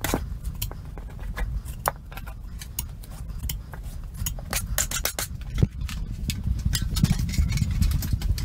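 Handling noise from drywall tools: irregular sharp clicks and taps over a steady low rumble, with one louder knock about five and a half seconds in.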